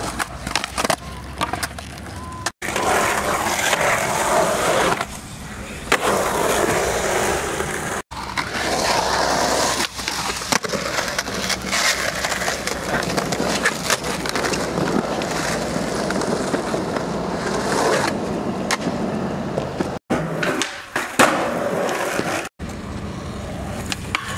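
Skateboard wheels rolling over concrete, with sharp clacks of boards popping and landing and a board sliding on a low rail near the start. The sound breaks off suddenly four times.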